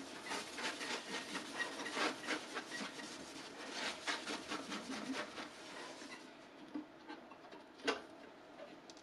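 A towel wiping quickly back and forth across a bare aluminum 3D-printer build plate, clearing off sanding dust. The rubbing stops about six seconds in, and near the end there is one sharp tap as the PEI sheet is set down on the plate.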